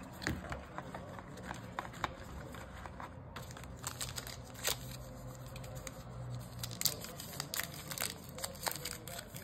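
Trading card pack wrapper being torn open and crinkled by hand: irregular crackles, sparse at first and busier from about halfway through.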